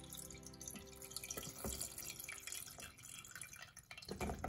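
Soy-sauce pickling liquid pouring in a stream from a stainless steel bowl into a plastic colander, splashing and thinning to a trickle and drips. Near the end there is a louder thump as cucumber slices tumble out into the colander.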